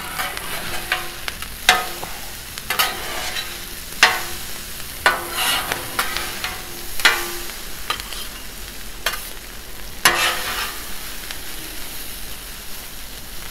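Chorizo and hash browns sizzling on a 36-inch Blackstone flat-top griddle while metal spatulas scrape and clack against the griddle plate. A sharp clack stands out every second or two over the steady sizzle.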